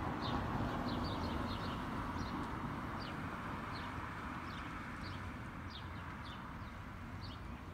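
Small songbirds chirping: many short, quick down-slurred chirps, scattered irregularly, over a low steady rushing background that slowly fades.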